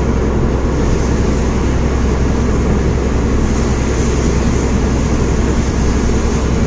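Trailer truck's diesel engine running at cruising speed, heard inside the cab as a steady low rumble, with tyre and rain hiss from the wet road.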